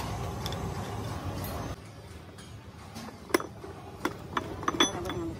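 Steel gears and shaft parts of a truck gearbox clinking against each other as they are handled and fitted during assembly. There are about half a dozen short metallic clicks, most of them in the second half.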